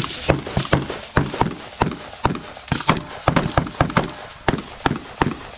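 Gunfire from several shooters firing at once: about twenty sharp shots at an irregular pace, some close together or overlapping.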